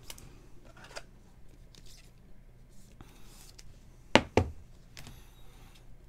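Topps Chrome trading cards being handled and sorted, with faint rustling and then two sharp clacks in quick succession about four seconds in as a stack of cards is set down on the table.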